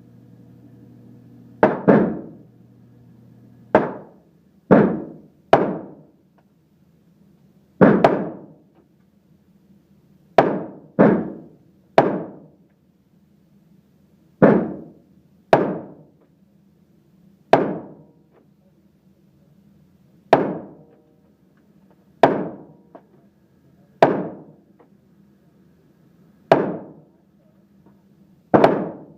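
Glock 17L 9mm pistol fired in slow single shots, about sixteen in all, one to two seconds apart, each a sharp crack with a short fading tail.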